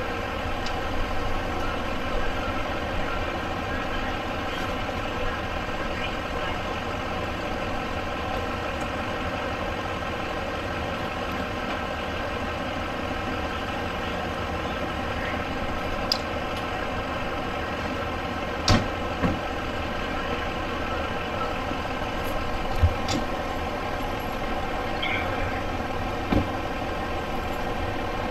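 Vehicle engine idling steadily, with a few short knocks or clicks scattered through.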